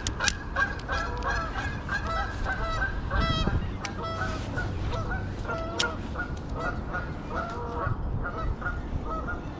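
Geese honking, many short repeated calls several times a second, overlapping as from a flock.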